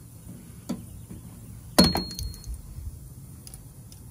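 A plastic push-pin retaining clip snapping out of the aluminum skid plate under clip-removal pliers: one sharp crack about two seconds in, a short high metallic ring and a few lighter clicks after it. The owner thinks the clip broke as it came out.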